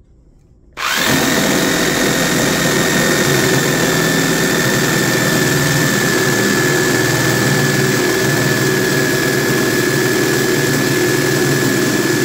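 Corded Makita 4329K jigsaw switching on about a second in and cutting through a thick pine block at top speed with full pendulum (orbital) action: a steady high motor whine over the blade's fast rasping in the wood.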